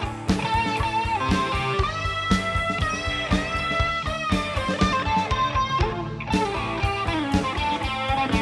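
A rock band plays an instrumental passage, with electric guitar notes, some held and some bending, over a steady drum beat.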